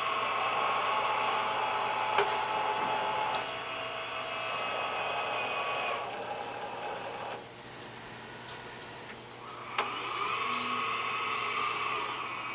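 Dynapace 90-degree PCB conveyor turn unit running through its cycle: its conveyor drive whines with steady tones. The whine cuts out about seven seconds in, then starts again after a sharp click a couple of seconds later, with another click early on.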